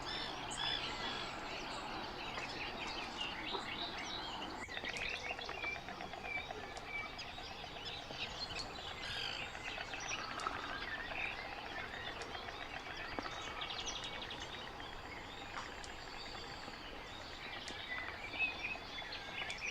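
Many birds chirping and singing at once: a busy mixed chorus of short calls and warbles, with no single call standing out.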